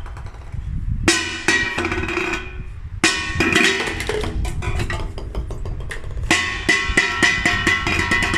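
Golf ball bouncing and clattering on a hard, ringing surface: three runs of quick sharp clicks, starting about one, three and six seconds in, each click leaving a short ringing tone. A steady low hum sits underneath.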